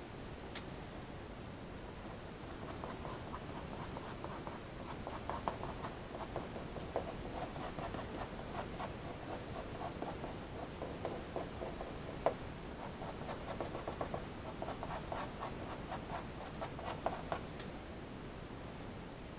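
Pencil sketching on drawing paper: rapid, repeated short strokes scratching across the sheet, starting a couple of seconds in and stopping near the end, with one sharper tick about two-thirds of the way through.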